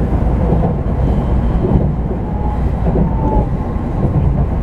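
Running noise inside a Shinkansen passenger car as it travels: a steady, dense rumble, mostly low in pitch.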